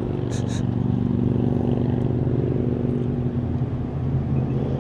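A steady low mechanical hum at a fixed pitch, like an engine running at idle, with a couple of short clicks about half a second in.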